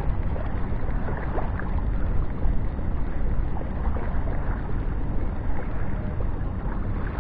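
Wind buffeting the microphone: a steady low rumble with faint scattered ticks over it.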